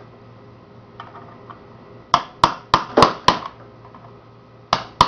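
Hammer blows on metal: a quick run of five sharp strikes with a short ring after each, then a pause and two more near the end, knocking at a tight tamper-proof screw to work it loose.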